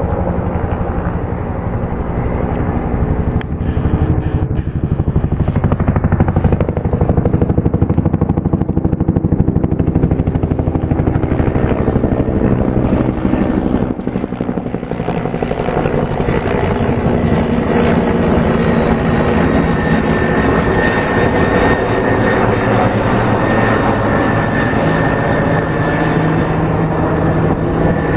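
Firefighting helicopter flying close past, its rotor blades beating rapidly and steadily. A steady high whine comes in past the middle.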